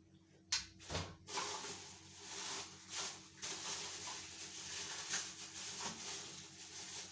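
A sharp click and a few knocks, then continuous rustling and small clatters of packaging and plastic accessories being handled and taken out of a new pressure cooker.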